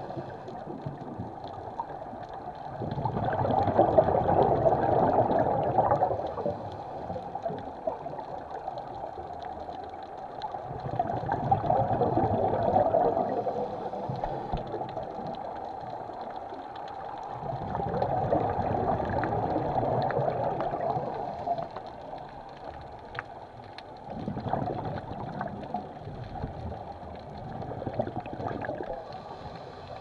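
Scuba regulator exhaust bubbles gurgling underwater in slow surges about every six or seven seconds, four times: the rhythm of a diver breathing out through the regulator.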